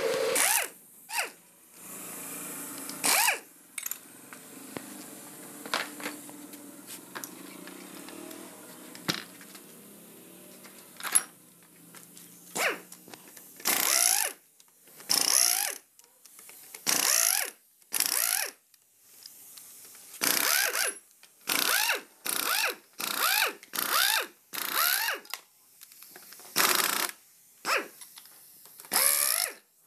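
Scattered knocks and clinks of hand tools on the gearbox, then, from about halfway, a ratchet wrench clicking in about a dozen short bursts of rapid ticks as the gearbox casing bolts are loosened.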